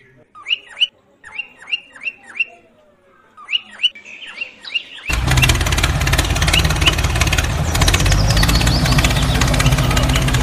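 Small birds chirping, with short, sharp chirps that fall in pitch, several to a second. About five seconds in, a loud, steady, engine-like rumble starts abruptly: a toy tractor running.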